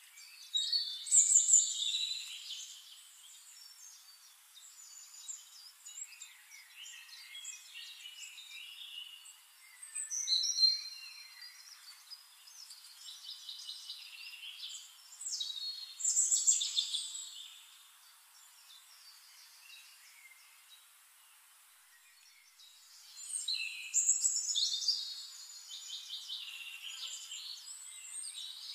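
Birds chirping and singing: several loud bursts of high, quickly gliding song, about a second in and again around ten, sixteen and twenty-four seconds, with softer chirping between them.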